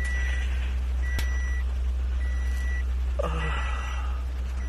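A vehicle's electronic warning beeper sounding a steady high beep about once a second, four times, heard from inside the car over a constant low rumble. A single sharp click comes about a second in.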